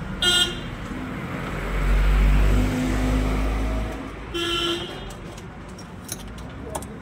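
Street traffic: a vehicle horn gives two short toots about four seconds apart, and between them a motor vehicle's engine rumbles loudly as it passes.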